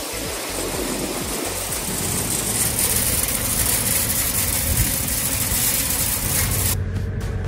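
Wheat pouring and rushing through a steel grain hopper, a steady hiss over the low hum of an engine running. Near the end the rush cuts off suddenly, leaving only a steady engine.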